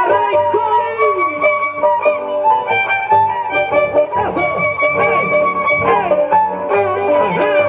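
Traditional Andean carnival music played by violins, their melody wavering and sliding in pitch, over plucked strings and steady low notes.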